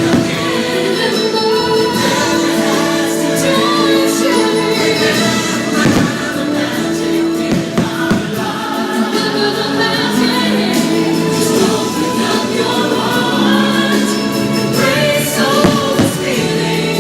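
Holiday fireworks show soundtrack: a choir singing over orchestral music, with a few sharp bangs about six and eight seconds in and near the end.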